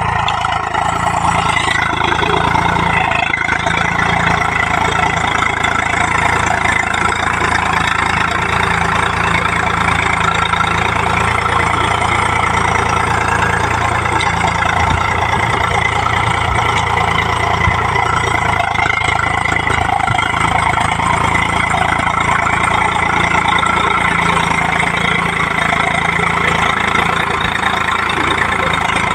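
Eicher farm tractor's diesel engine running steadily under load while pulling a spring-tine cultivator through the soil.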